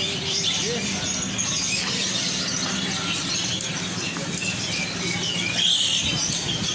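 Many caged birds chirping and calling at once, with a louder squealing call near the end, over a steady low background hum.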